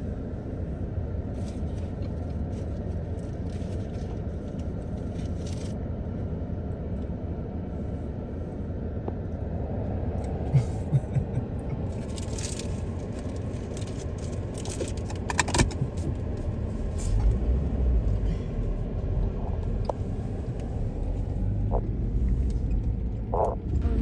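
Steady low rumble of a car on the move, with a few short light clicks and rattles; the rumble grows louder in the second half.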